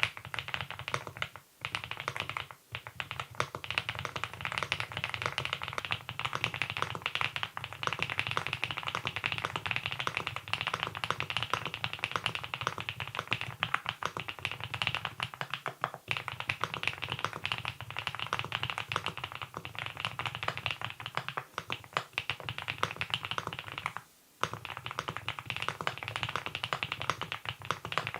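Fast, continuous typing on the Monstargear Ninja87 Pro ALU, an aluminium-cased tenkeyless mechanical keyboard fitted with its stock Hanbaekok switches. It is a dense clatter of keystrokes, broken by brief pauses near the start and again near the end.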